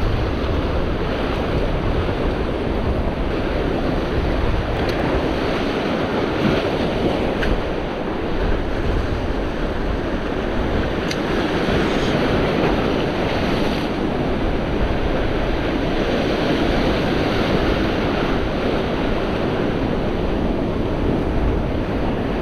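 Sea surf washing against a rocky shore, a steady, unbroken wash of waves, with wind buffeting the microphone.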